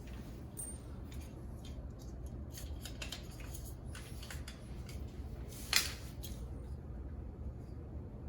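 Small metallic clicks and taps of doorknob hardware and screws being handled and fitted into the door, with one louder click about six seconds in.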